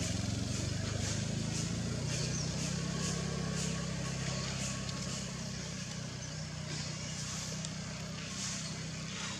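A motor vehicle's engine running at a steady low drone that slowly fades, with faint high chirps repeating about twice a second.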